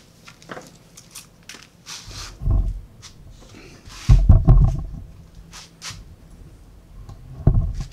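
Handling noise from a camera being picked up and turned around: rustling and clicks, with dull thumps about two and a half seconds in, around four seconds in (the loudest), and again near the end.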